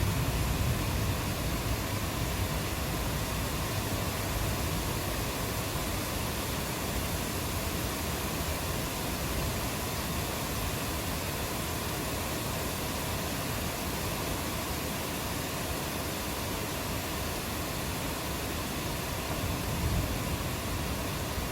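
Steady rain falling as a dense, even hiss, with a low rumble of thunder swelling briefly near the end.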